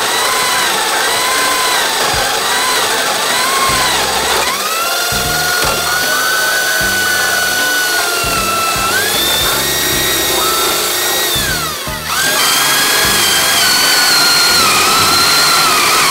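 Power drill with a spade bit boring through wooden boards, its motor whine sagging and rising as the bit bites into the wood. About twelve seconds in the sound dips briefly, then another hole is drilled with a steadier whine.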